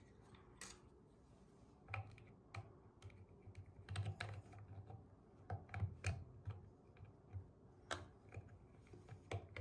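Faint, irregular clicks and taps of a plastic faucet aerator key against a chrome MOEN faucet spout as the low-flow aerator is turned and screwed back in.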